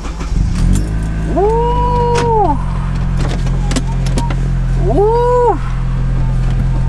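A Honda K24A inline-four swapped into a 2004 Honda Element catches and settles into a steady idle. Two short squeals rise and fall in pitch over it, one about a second in and another about five seconds in.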